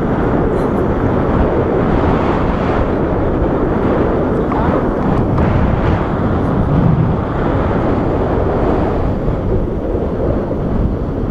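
Wind rushing over the camera microphone of a tandem paraglider in flight, a loud, steady rumbling hiss.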